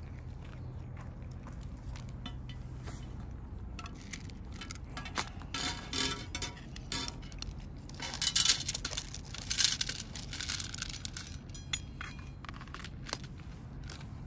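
Cats eating dry food from a dish: kibble clicking and clinking against the dish in sharp clicks, busiest in two clusters about five and eight seconds in.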